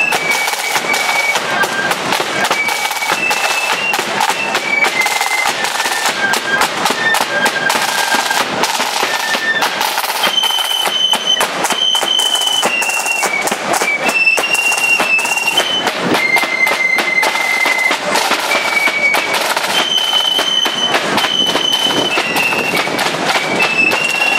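Marching flute band playing a high-pitched tune on flutes, with the snare drums rattling and a bass drum beating underneath.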